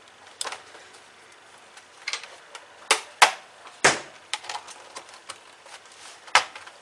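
Plastic bottom cover of an Acer Aspire E15 laptop clicking and snapping as its latches are unclipped along the edge: a string of sharp, irregular clicks, the loudest about four seconds in.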